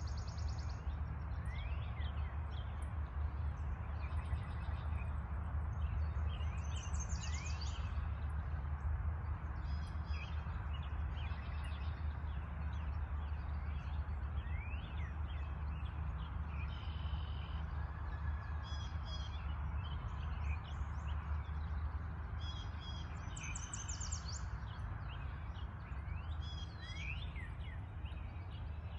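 Several birds chirping and calling in a spring morning chorus: short chirps, rapid trills and quick upward-sweeping notes scattered throughout, over a steady low rumble.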